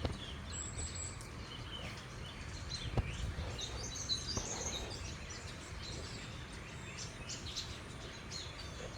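Many backyard songbirds chirping and twittering at once, short high calls overlapping throughout, over a steady low outdoor rumble.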